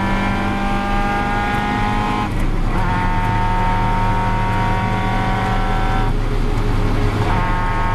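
Caterham Seven's 2.3-litre Ford Duratec four-cylinder pulling hard at full throttle, its note climbing slowly. It breaks briefly about two seconds in as it shifts up and picks up again a little lower, then breaks once more about six seconds in.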